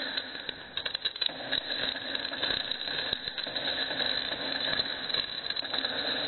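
Homemade 24-volt fish stunner arcing from its wire-mesh fan-guard electrode to the ground during a spark test of its output. The arc gives a continuous crackling electric buzz full of sharp snaps.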